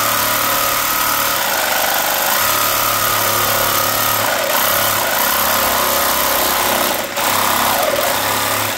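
Reciprocating saw with a long demolition blade running hard as it cuts into a large transformer, a steady loud buzz with a brief dip about seven seconds in, then cutting off abruptly at the end.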